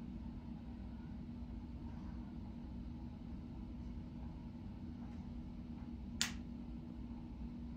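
Steady low rumble and hum inside a cruise ship under way, heard through the window glass. One sharp click comes about six seconds in.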